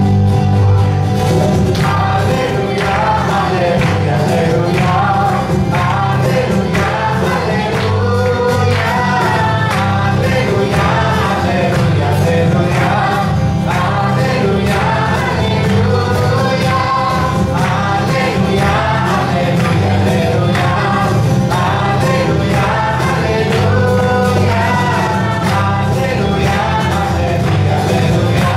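A group of voices singing a hymn together, over strummed guitar accompaniment.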